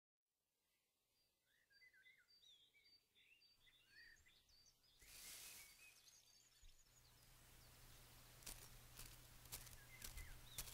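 Faint chirping of small birds, many short high calls. About halfway a soft steady hiss comes in, and a few sharp clicks fall near the end.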